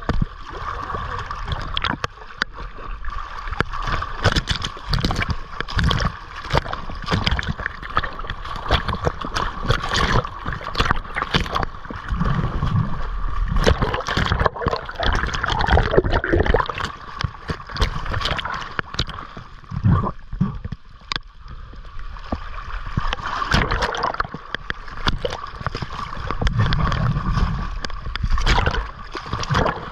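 Sea water splashing and gurgling close to the microphone, with many sharp knocks and heavier sloshes now and then.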